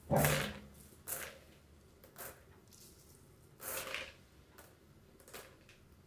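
Dried beans swept by hand off a table and spilling into a plastic bowl, in six short spills; the first, right at the start, is the loudest.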